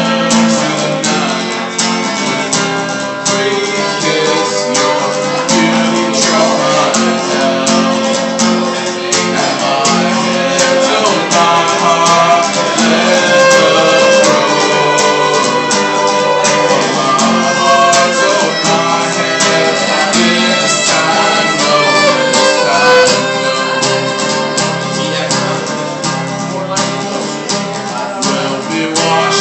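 Folk-style song playing, with guitar and bowed strings carrying the music.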